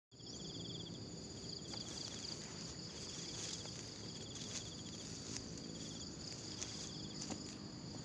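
Insect chorus: steady high-pitched trilling, with one insect repeating short, rapid pulsed trills about once a second. A few faint clicks and rustles sound underneath.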